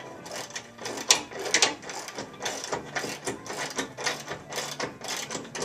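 Ratchet wrench clicking in rapid, uneven strokes as lag screws are driven through a waterer's mounting holes into wood.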